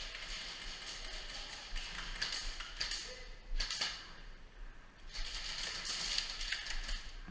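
Airsoft gunfire: several bursts of rapid clicking and tapping, with BBs striking surfaces.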